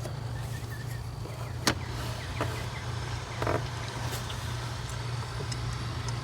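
A steady low hum, with a few faint metallic clicks and a short scrape, the loudest about a second and a half in and another about three and a half seconds in. These are small hand-tool sounds from threading a spark plug insert into the cylinder head by hand.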